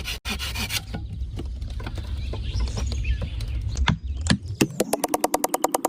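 A low rumble, then, about three-quarters of the way in, a small engine starts running with a rapid, even putter of about eight beats a second.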